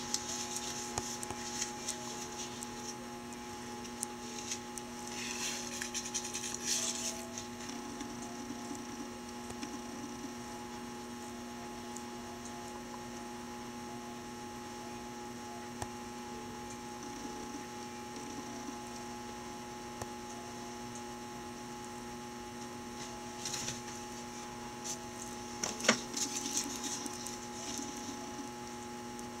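Steady electrical hum with a few fixed tones running throughout. Brief rustling noises come and go near the start, about five to seven seconds in, and again near the end, with one sharp click about 26 seconds in.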